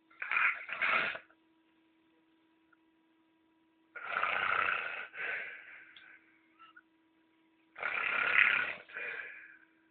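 A man snoring heavily, like a lion roaring. There are three snores about four seconds apart, each in two pulses.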